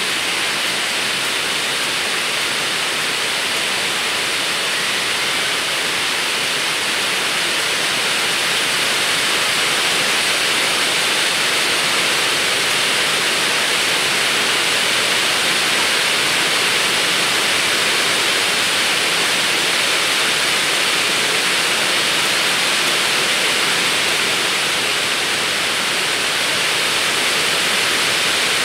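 Steady, even hiss with no distinct knocks or tones, growing slightly louder about eight seconds in.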